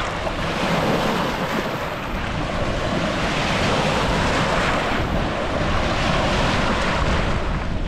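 Small Lake Superior waves breaking and washing over a cobble shoreline in a steady wash of surf, with wind buffeting the microphone in a low rumble.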